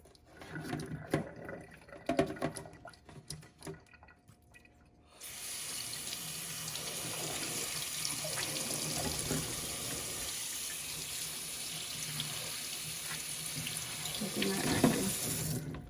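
Light clicks and knocks as a dishwasher spray arm is handled, then a kitchen tap runs hot water through the spray arm to flush its unclogged holes, a steady hiss starting about five seconds in and cutting off just before the end.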